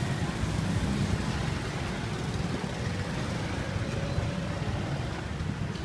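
Steady low rumble of street traffic and vehicle engines.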